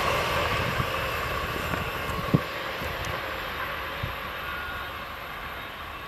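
Electric Intercity train with a DB Class 101 locomotive at its rear running away into the distance: its rolling noise and a steady hum fade steadily. A short low thump about two seconds in.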